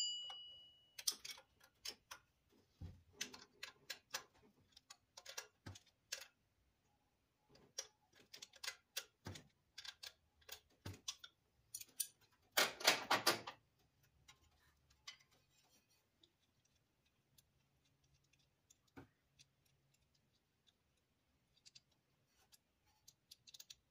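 Socket ratchet clicking in short runs on the lower A/C compressor mounting bolt, with a dense, louder run about 13 seconds in, then only a few scattered clicks and taps.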